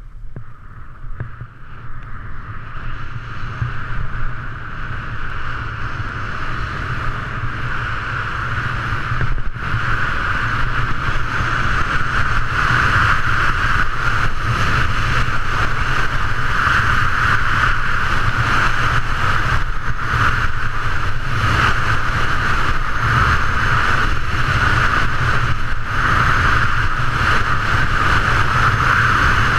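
Wind rushing over a GoPro microphone and skis hissing over packed snow on a downhill run, growing louder over the first ten seconds as speed builds, then a steady rush.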